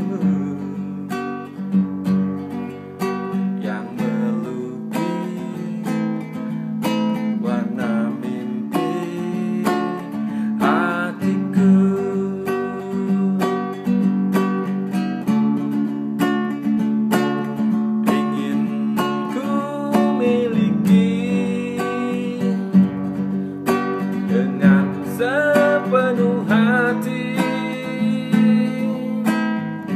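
Classical acoustic guitar strummed in a steady rhythm, playing the chords of a slow pop ballad with no singing.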